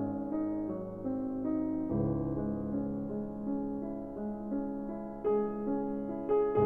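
Background music: a soft piano piece, notes and chords changing steadily.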